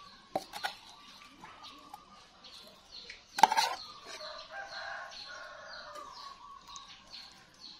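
A metal ladle scraping and clanking in an aluminium pot as pork larb is scooped, with one sharp clank about three and a half seconds in, over birds calling in the background.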